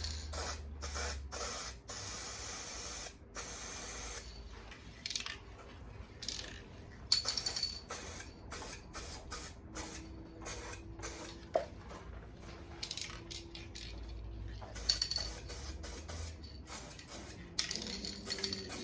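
Aerosol spray can of satin black paint spraying in repeated hissing bursts, mostly short, with two longer bursts of about a second each near the start.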